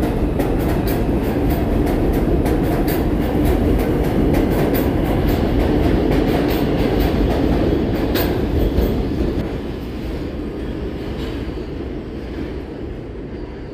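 IRT subway train pulling out of an elevated station and running away along the track, its wheels clicking rapidly over the rail joints over a heavy rumble. It fades from about nine seconds in as the train recedes.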